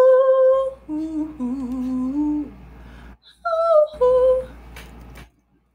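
A woman singing a couple of short phrases of long held notes, each followed by softer, lower humming.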